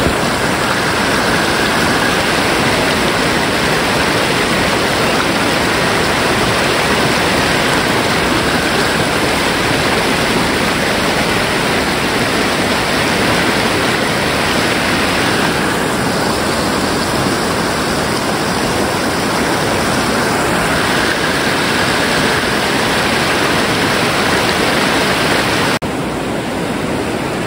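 Loud, steady rushing of fast-flowing river water, dropping abruptly to a somewhat lower level near the end.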